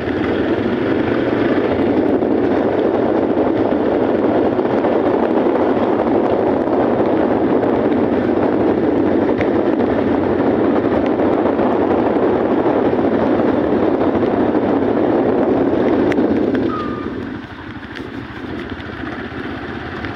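Wind and road noise of a moving motorcycle, a steady loud rush over the microphone with the bike's engine beneath it. The rush drops off sharply about three-quarters of the way through.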